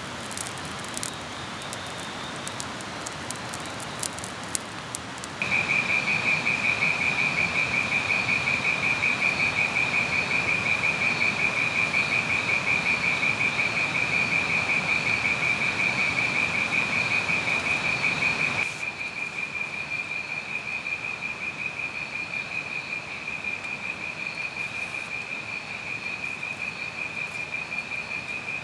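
A wood fire crackling softly at first. About five seconds in, an insect's steady, high, rapidly pulsing trill starts and carries on, becoming softer about two-thirds of the way through.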